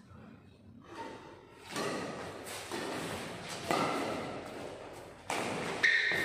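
Badminton doubles rally: rackets striking the shuttlecock and players moving on the court, several separate sharp hits spaced about a second apart.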